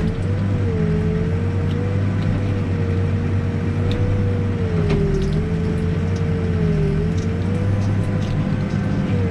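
New Holland B95 backhoe loader's diesel engine running steadily under work, with a whine whose pitch dips slightly a few times as the load changes.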